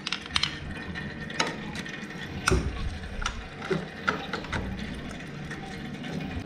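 Irregular metallic clicks and knocks of a hand tool working the gear-change lever bolt loose on a motorcycle engine, with the sharpest knock about two and a half seconds in.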